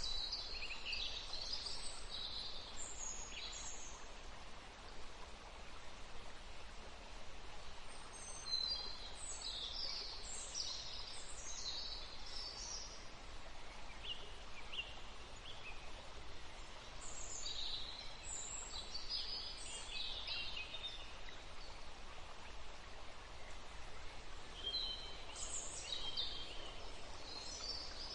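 Wild birds singing in bouts of quick, high chirps, with pauses between them, over a steady background hiss.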